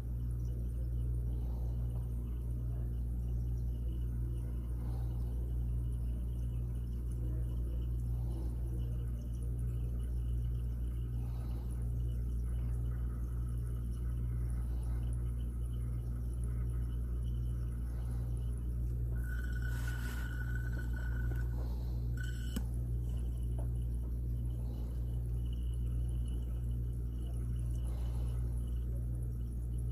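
Steady low hum with a slight regular pulsing, and faint water trickling into a glass flask. About 19 seconds in a short steady high tone sounds for about two seconds, followed by a click.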